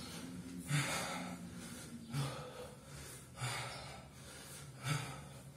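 A man breathing hard under exertion during one-arm kettlebell cleans with a 24 kg bell: four forceful breaths, about one every second and a half, in time with the reps.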